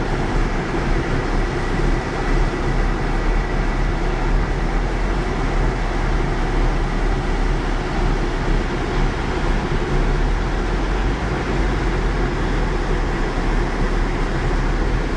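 Heavy rain: a steady, dense hiss of downpour with a low rumble underneath.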